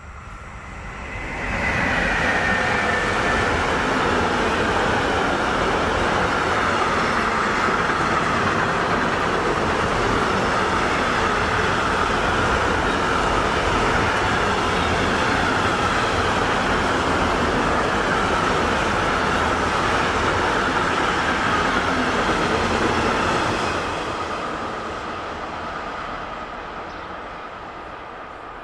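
Long intermodal freight train, its wagons loaded with swap bodies and semitrailers, passing close by: the noise arrives suddenly about a second and a half in, as a steady rumble of wheels on rail with a high whine above it. It fades gradually over the last few seconds as the end of the train recedes.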